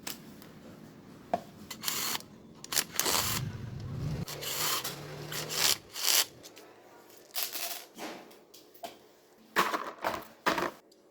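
Irregular rubbing and scraping strokes from hand work on small parts, broken up by a few sharp clicks.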